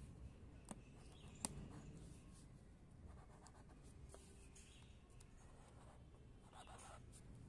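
Faint scratching of a black pen drawing straight lines on paper, with two sharp clicks, the louder about a second and a half in.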